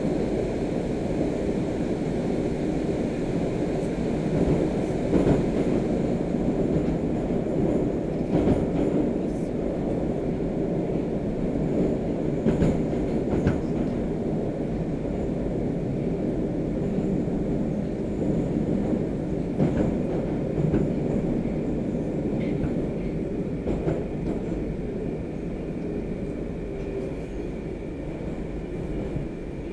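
Inside a 'Moskva' (81-765) metro car running at speed through a tunnel: a steady rumble of wheels on rails with scattered sharp clacks over rail joints. The noise drops a little near the end as the train enters a station.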